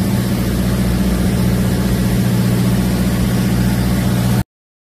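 A fishing boat's engine running steadily, a constant low hum with engine noise over it, which stops abruptly about four and a half seconds in.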